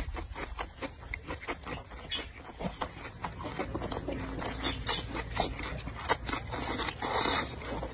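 Close-up mouth sounds of a man chewing a bite of green pepper: a quick run of wet smacks and crunchy clicks, with a louder, longer crunching noise about seven seconds in.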